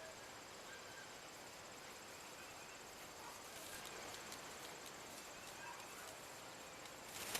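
Faint outdoor ambience with a steady, high, finely pulsed insect trill like crickets, and a few faint short chirps. Clicks and rustling start near the end.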